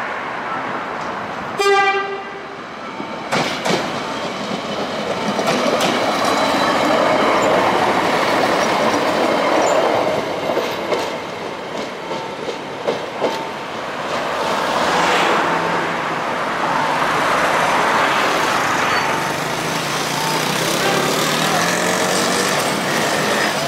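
Nohab diesel railcar sounding one short horn blast about two seconds in, then running past with steady engine and wheel noise. Its wheels click over rail joints around the middle, and its engine hum grows stronger near the end.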